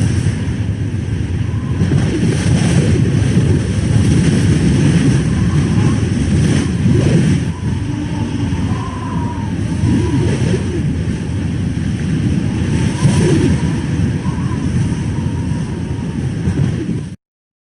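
Strong wind blowing in gusts: a deep, heavy rumble with faint wavering whistles, which cuts off abruptly near the end.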